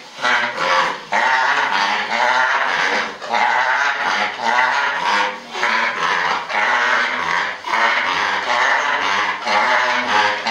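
Pigs squealing loudly and almost without pause, the calls overlapping and breaking off briefly about once a second.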